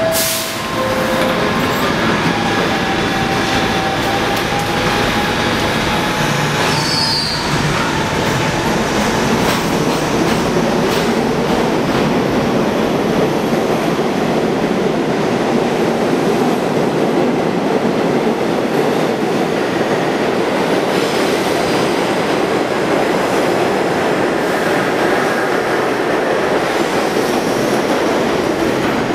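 New York City subway train departing a station: a two-tone descending door chime at the start, then the train pulls out with a steady motor whine and a brief high wheel squeal about seven seconds in, followed by continuous loud rolling and rumbling of the cars passing as it runs into the tunnel.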